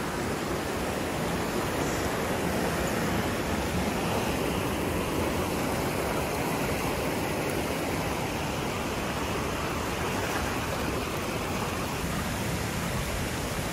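Hot-spring waterfall, water falling and splashing in a steady, unbroken rush.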